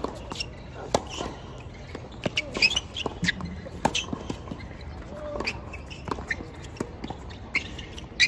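Tennis balls struck and bouncing on court, heard as sharp knocks at irregular intervals, with faint voices in the background.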